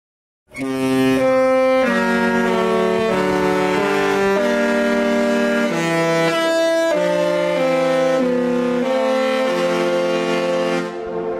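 A slow melody of long held notes in chords, with a reedy, brass-like tone, changing note about every half second to second and fading out near the end.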